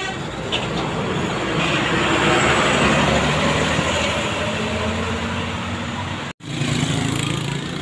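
A bus driving past close by: engine and tyre noise swell to a peak and ease off, leaving a low engine drone. The sound drops out for an instant about six seconds in.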